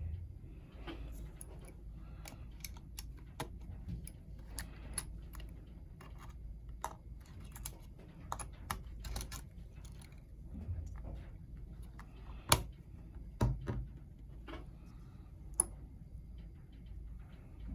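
Irregular small clicks and taps of plastic and metal laptop parts being handled during a Chromebook motherboard replacement, with one sharper click about two thirds of the way through, over a steady low hum.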